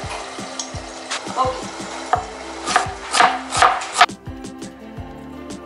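Chef's knife slicing onions on a plastic cutting board: irregular blade taps on the board, quickening and growing louder about three seconds in. They stop a second later, leaving a steady low hum.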